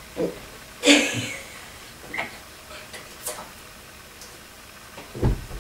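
Scattered light clicks and taps of pens and hands on a tabletop while drawing, with one sharper, louder knock about a second in and a low thump near the end.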